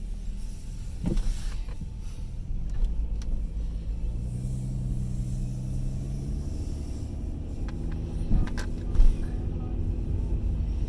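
A motor vehicle's engine running with a steady low rumble, with a couple of sharp knocks about eight and nine seconds in.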